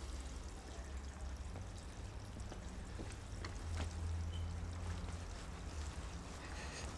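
Water trickling and pouring from an aquaponics system over a steady low hum, with a few faint ticks.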